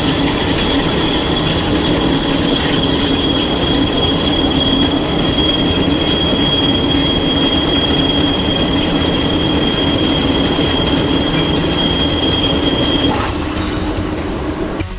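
A 40 mm U-drill cutting in a Headman CNC lathe: a steady high-pitched squeal over the noise of the cut, the squeal stopping about 13 seconds in.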